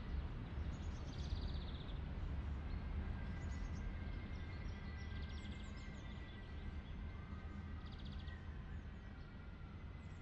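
Outdoor ambience: a steady low rumble with small birds chirping on and off, some calls short high chirps and some brief buzzy trills.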